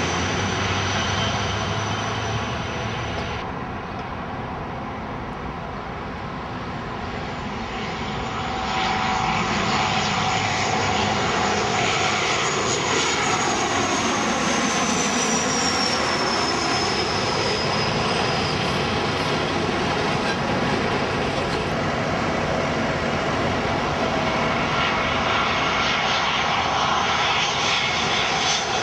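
Airliners on landing approach passing low overhead one after another, a rear-engined twin-jet, a Dash 8 turboprop and an Airbus A320, their engines giving a loud, continuous rushing drone. The sound changes abruptly a few seconds in, eases, then swells again. Around the middle a high whine slides down in pitch as an aircraft goes past.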